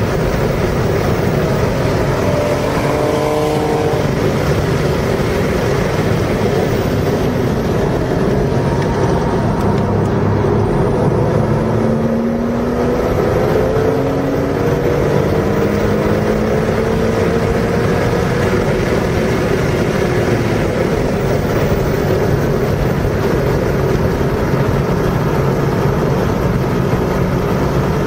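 Car engine running hard on a race track, its pitch climbing again and again as it accelerates through the gears, over heavy wind and road rush.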